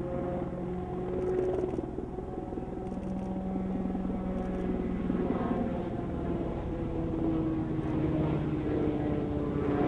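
Helicopter flying low in banking turns, a steady engine and rotor drone whose pitch sinks slowly.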